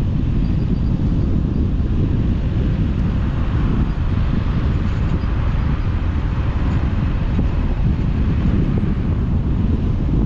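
Wind buffeting the microphone: a loud, steady, gusty low rumble, with a fainter even hiss of background noise above it.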